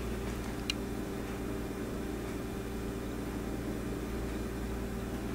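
Steady low electrical hum with a faint hiss: room tone. One faint click about a second in.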